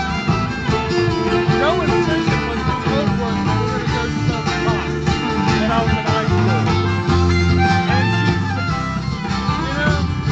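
Live string-band music in a bluegrass vein, with guitar and other plucked strings over a bass line.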